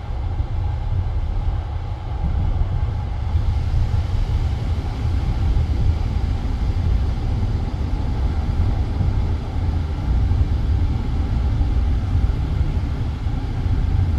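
Passenger train running steadily on the line, its wheels rumbling on the rails, heard from inside the carriage.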